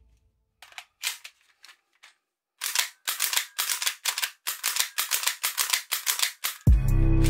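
Toy gun mechanism clicking: a few scattered sharp clicks, then a fast run of clicks, about four or five a second, for some four seconds. Music comes in near the end.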